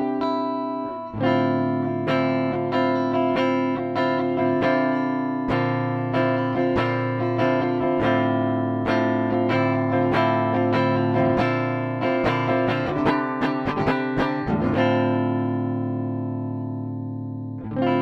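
Schecter C-1 Elite electric guitar played clean through its neck pickup with no effects: ringing chords and arpeggios with a quicker run of single notes, ending on a chord left to ring out and fade.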